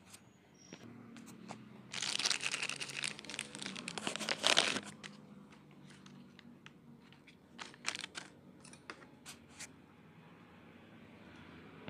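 Plastic wrapping crinkling for about three seconds as a new oil filter is unwrapped from its bag and box, followed by scattered light clicks and taps of handling.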